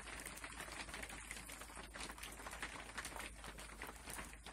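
Steady rain pattering faintly, a dense mass of small ticks.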